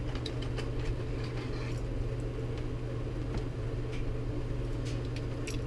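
A steady low hum runs throughout and is the loudest sound. Over it come scattered faint clicks and rustles of clear plastic lure boxes being opened and handled.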